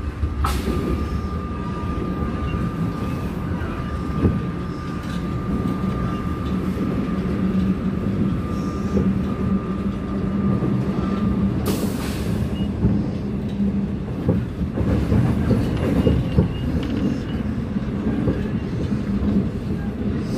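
Seoul Subway Line 4 train running across a bridge, heard from inside the passenger car: a steady rumble of wheels on rails, with a thin, steady high tone that stops about twelve seconds in.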